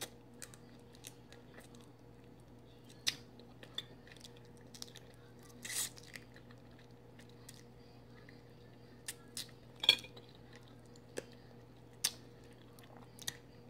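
A person eating Dungeness crab meat: quiet chewing with scattered short wet mouth clicks and smacks, the loudest about ten seconds in.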